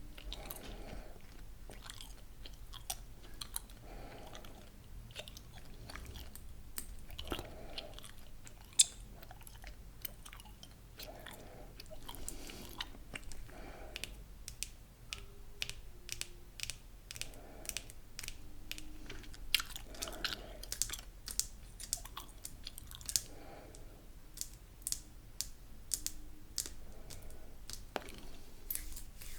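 Chewing gum close to the microphone: many sharp wet mouth clicks and smacks, with a softer chomp every second or two.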